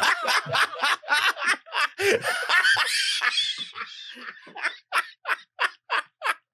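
Hearty laughter from more than one person right after a joke, thinning out into short breathy gasps about three a second near the end.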